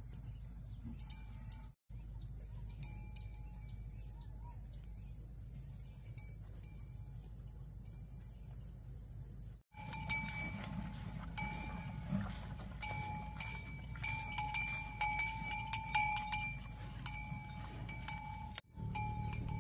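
Bell on a grazing cow clinking irregularly, the same two notes struck again and again; faint at first, then louder and more frequent from about halfway.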